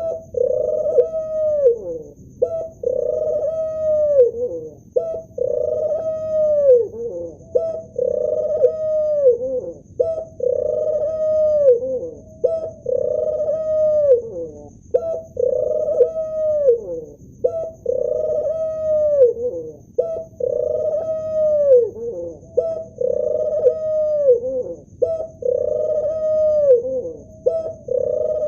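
Male ring-necked dove cooing: one long coo after another, evenly repeated about every two and a half seconds, each call ending in a falling note.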